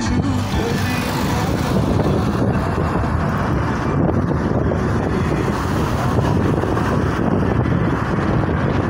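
Car driving in city traffic: steady road and engine noise, with a low rumble of wind on the microphone.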